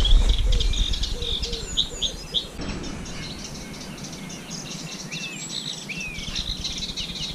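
Songbirds singing: many quick chirps and short whistled phrases, with a low rumble underneath for the first couple of seconds.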